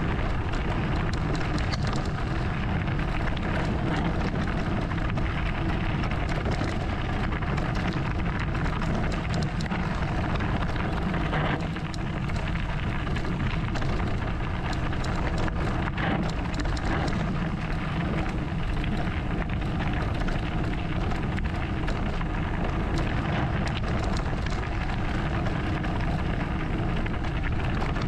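Sunn enduro mountain bike rolling down a loose gravel track: the tyres crunch and crackle steadily over the stones, with many small clicks and rattles from the bike over a low rumble.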